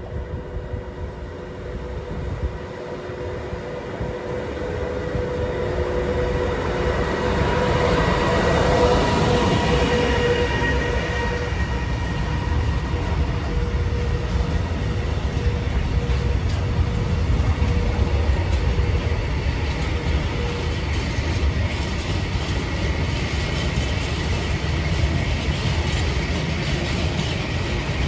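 Electric locomotive hauling a container freight train running through the station: a humming tone swells to its loudest as the locomotive passes, eight to ten seconds in, and fades out in the second half. The steady rumble and rattle of the container wagons rolling over the rails continues after it.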